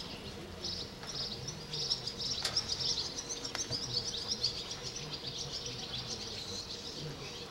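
Many small birds chirping and twittering continuously, with two short knocks near the middle.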